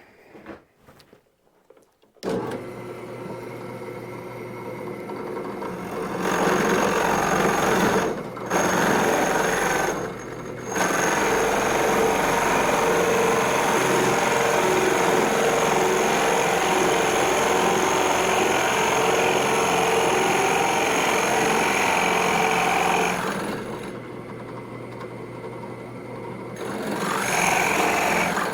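An electric drill boring an angled hole into a wooden template. The motor starts about two seconds in and runs steadily under load, briefly letting up twice. It eases near the end, speeds up again and stops.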